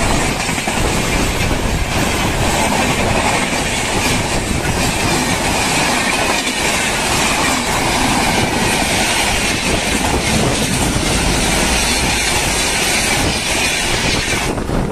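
Passenger train coaches passing close by at speed: a steady loud rush with wheels clattering over the rail joints. The noise drops away near the end as the last coach goes by.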